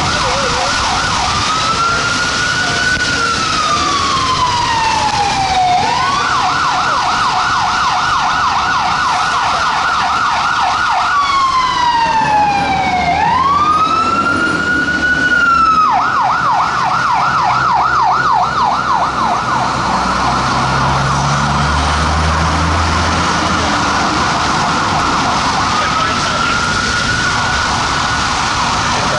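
Fire truck electronic siren. It alternates between a slow rising-and-falling wail and a fast yelp: the yelp starts about six seconds in, the wail returns, the yelp comes back around sixteen seconds, and the wail returns again near the end.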